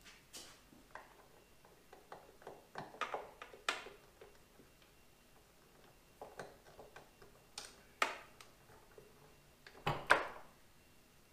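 Scattered small clicks and knocks from a Tesla Model 3 hood gas strut being worked off its ball-stud mount by hand, with the loudest pair of sharp snaps about ten seconds in.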